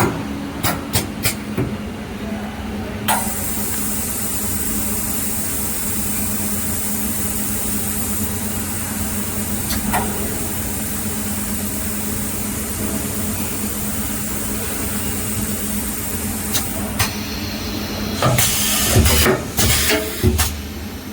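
Automatic rotor glue-dispensing and magnet-insertion machine at work: a steady hum with a long hiss through most of it. There are sharp clicks near the start and in the middle, and a burst of loud clacks near the end.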